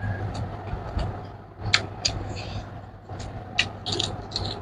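Close-up eating sounds: wet mouth clicks and lip smacks from chewing a mouthful of rice and pork, with a few sniffs, over a steady low hum.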